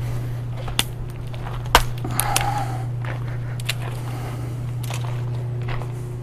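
Scattered sharp knocks and rustles from clothing rubbing against a voice recorder tucked inside a sweater, over a steady low hum.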